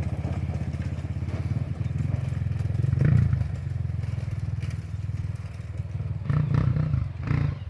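Trail motorcycle's single-cylinder engine running at a steady low speed over rough ground, with louder thumps and rattles about three seconds in and again near the end.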